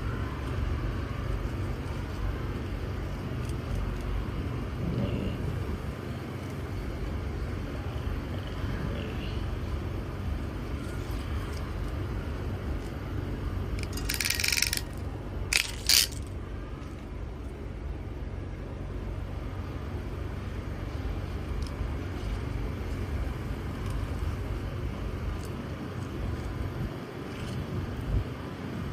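Steady low background rumble. About halfway through, a network-cable crimping tool working on the cable gives a short rasping burst and then two sharp clicks.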